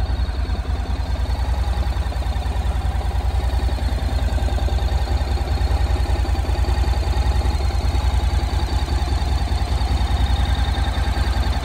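2015 Honda NC700X's 670 cc parallel-twin engine idling steadily, with an even low exhaust pulse and no revving.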